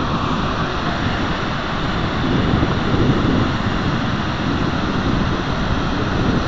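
Heavy rush of water pouring down a dam spillway, overlaid by wind buffeting the microphone.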